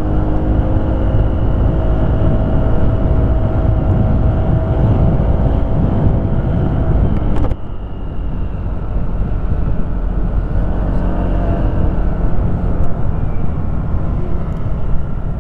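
Motorcycle engine running at a steady cruise while riding, with heavy wind rush on the microphone. The sound drops suddenly about halfway through and carries on at a slightly lower level.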